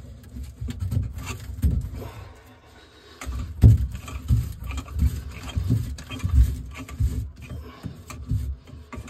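Low, rhythmic thumps and rubbing, about one and a half a second, as a chrome sink drain tailpiece is twisted and worked back and forth by hand.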